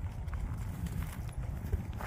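Wind buffeting the microphone in a steady low rumble, with faint irregular knocks over it.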